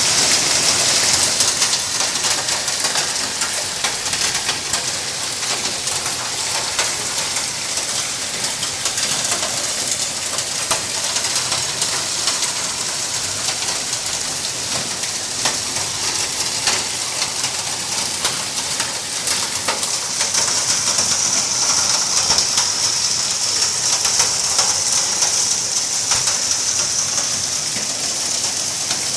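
Hailstorm: hailstones and rain pelting down in a dense, steady hiss full of small sharp ticks of stones striking. The hiss grows heavier about two-thirds of the way through.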